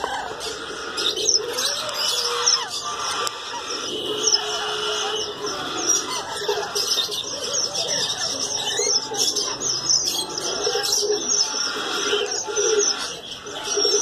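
A dense chorus of many caged birds chirping and calling at once, with quick high chirps over lower calls and no let-up, parrots such as rainbow lorikeets among them.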